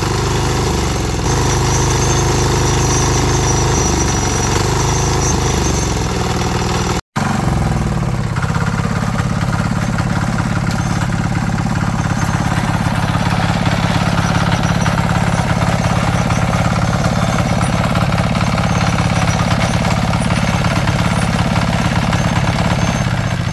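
Small single-cylinder diesel engine of a 173F mini tractor running, its speed shifting up and down. The sound breaks off for an instant about seven seconds in, then the engine runs on at a steady speed.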